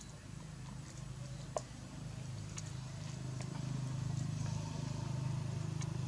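A low engine hum with a fast, even pulse runs throughout and grows louder about halfway through, with a few sharp clicks on top.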